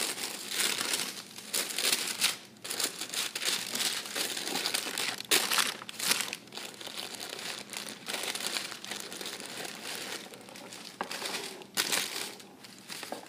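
Packaging being handled while a pair of shoes is unboxed: paper wrapping crinkling and rustling unevenly, with sharp crackles now and then.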